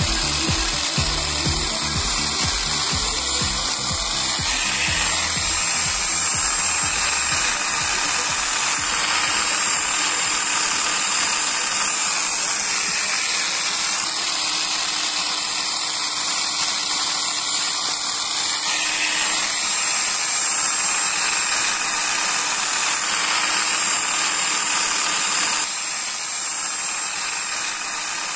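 Electric drill running steadily at speed, spinning the flexible shaft of a homemade concrete vibrator whose poker is working in wet concrete. A constant high whine over a hiss, dropping slightly in level near the end.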